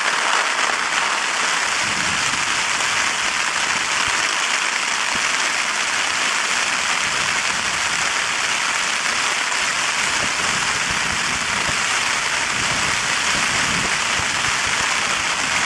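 Steady rain falling on a Bonfus Duos 2P tent, heard from inside the tent: an even, unbroken hiss of rain on the fabric.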